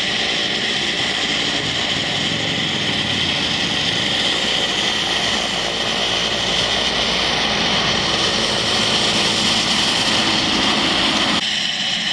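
A Mil Mi-8-family military transport helicopter flying low overhead, its turbine engines and rotor making a steady loud noise with a high whine over a low rumble. Near the end the sound cuts abruptly to a thinner engine noise with less rumble.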